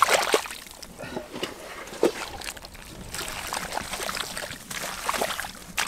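Bare hands squelching and scooping through wet mud, with irregular wet slaps and splatters, a few sharper ones near the start, about two seconds in and near the end.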